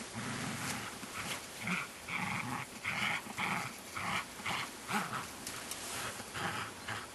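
Belgian Shepherd Groenendael growling in rapid short pulses, a few a second, while tugging and wrestling with a person.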